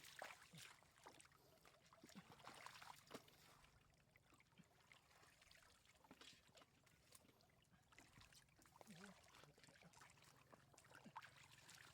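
Faint water trickling and splashing, with many small scattered splashes.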